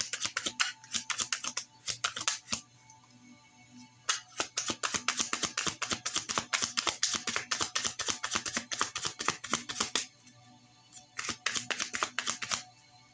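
Tarot cards being shuffled by hand: fast runs of crisp clicking and flicking that break off briefly about two and a half seconds in and again near ten seconds. Soft background music runs underneath.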